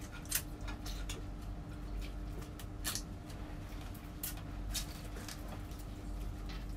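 Scattered small clicks, crackles and smacks of people eating with their hands at a table, chewing and picking food off plates, over a low steady hum.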